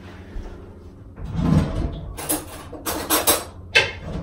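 Cereal packet being handled and opened, crinkling and rustling in several loud bursts starting about a second in.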